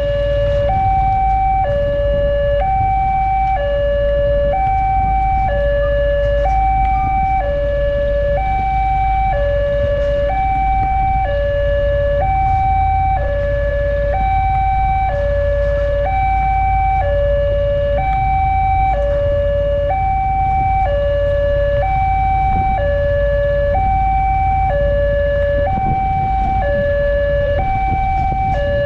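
Railway level-crossing electronic warning alarm sounding its two-tone signal, a higher and a lower tone alternating about once a second, over a steady low rumble. The alarm is the warning that a train is approaching the crossing.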